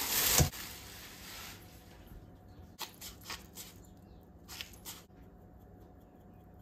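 Plastic cling wrap crinkling loudly as a lump of minced chicken is tipped out of it into a stainless steel bowl, the crinkling dying away after about a second and a half. Then a few short scratchy bursts as ground pepper is added over the meat.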